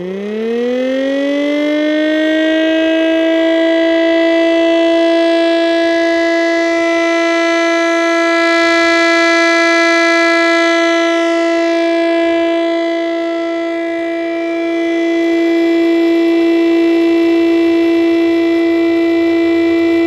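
3D-printed 1/10-scale Chrysler air raid siren model, its two-stage blower and rotor spun by a motor, winding up in pitch over the first two seconds, then sounding one loud, steady tone with many overtones. The motor does not bring it up to full operating RPM.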